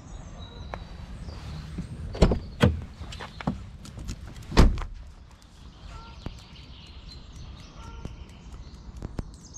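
A car door being handled: a few sharp knocks and thunks, the loudest a solid door-shut thunk a little under halfway through, followed by faint light steps.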